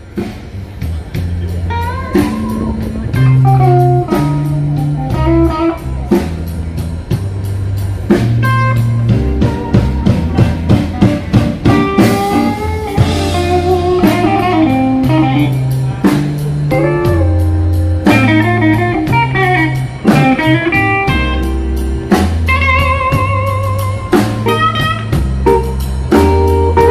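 A band playing blues-style music: electric guitar lead lines with bent, wavering notes over bass and drum kit.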